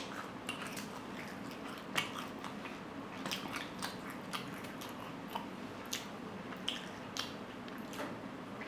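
A person chewing food close to the microphone, with irregular wet mouth clicks and smacks, over a faint steady hum.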